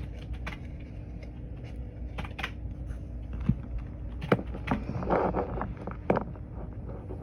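Irregular clicks of typing on a computer keyboard, over a steady low hum of room noise.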